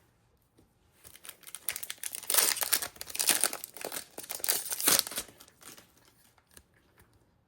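Foil Pokémon booster pack wrapper crinkling and being torn open: a few seconds of dense crackle that tails off into light rustling.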